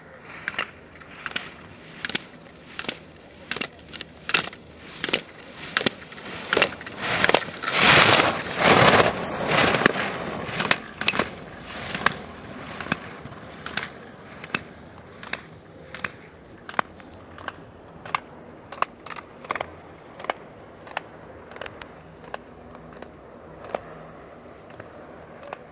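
Slalom skier running gates on hard snow: a sharp clack at each gate about every three-quarters of a second as the racer knocks the hinged poles aside, over the scrape of ski edges carving each turn. The edge scraping is loudest about eight to ten seconds in, as the skier passes close, and the clacks grow fainter as he moves away down the course.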